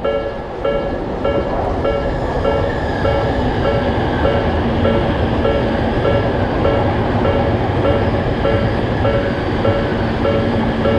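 Japanese railroad crossing alarm ringing, a short electronic 'kan-kan' clang repeating steadily about every 0.6 s, over the rumbling running noise of a train.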